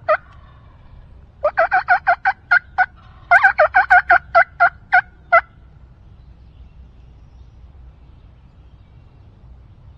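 Turkey yelping: two loud runs of quick, sharp yelps, each about eight notes long, the first starting about a second and a half in and the second right after it, ending about five seconds in.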